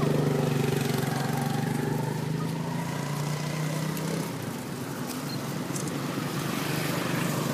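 A motor engine runs nearby at a steady pitch, dropping in level about four seconds in.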